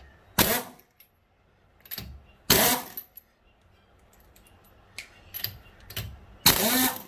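Three short, loud bursts of metal tool noise, with light clicks and clinks between them, as the wheel nuts are undone to take the wheel off.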